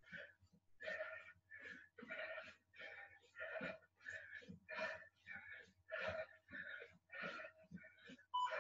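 A person panting hard and fast, about two to three breaths a second, out of breath from intense exercise. An interval timer starts beeping right at the end.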